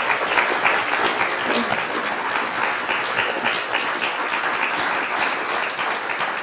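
Audience applauding with sustained clapping after a lecture, tapering off near the end.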